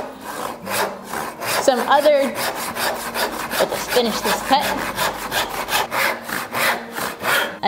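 Western brass-backed backsaw crosscutting a wooden board by hand, the teeth rasping through the wood in a fast, even rhythm of strokes.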